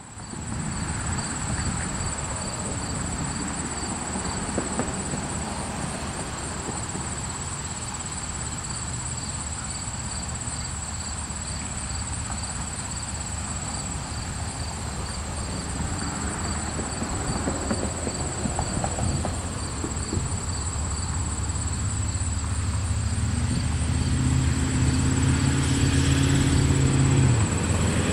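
Insects chirping steadily in a high, pulsing chorus while the diesel locomotives of an approaching freight train grow louder, their engines' low drone building over the last several seconds.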